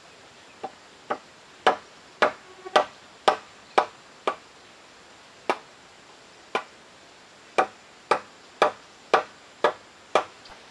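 Hand tool chopping into a wooden timber: about sixteen sharp, dry blows, roughly two a second, with two short pauses midway.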